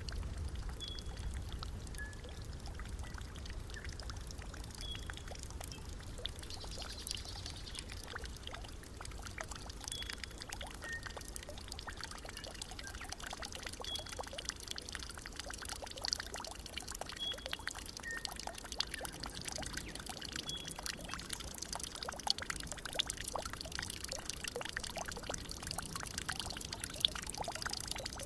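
Water trickling and splashing steadily, full of fine droplet clicks. A short, high chirp-like call repeats about every two seconds over it.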